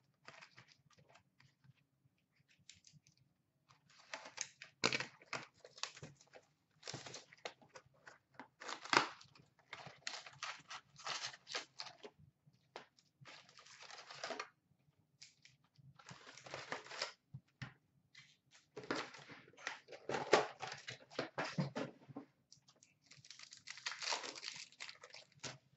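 A sealed hockey card box opened and its packs torn open: irregular bursts of tearing and crinkling wrapper and cardboard, with short quiet gaps between them.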